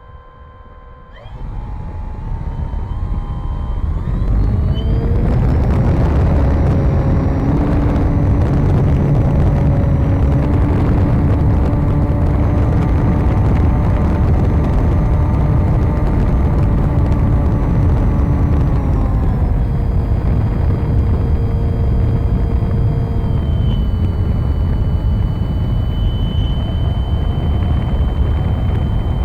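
RC model plane's electric motor and propeller, heard from an onboard camera. A whining tone climbs in steps as the throttle opens about a second in, reaches full power after about four seconds with heavy propeller and air rush, then eases back to part throttle after about twenty seconds and again near the end.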